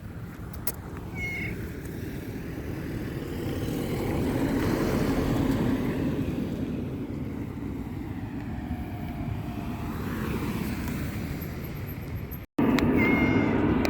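A cat meowing briefly, about a second in and again near the end, over the rising and falling noise of passing traffic.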